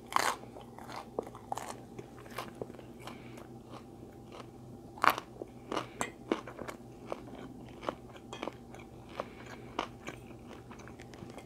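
A person chewing and biting food close to the microphone: irregular soft crunches and mouth clicks, with a few louder bites near the start and about halfway through.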